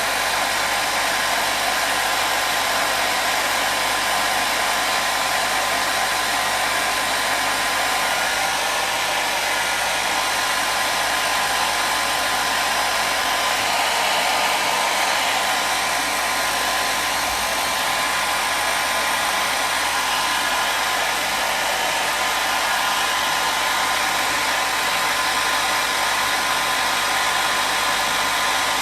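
Hair dryer running continuously at a steady speed: an even rushing blow of air with a faint steady motor whine.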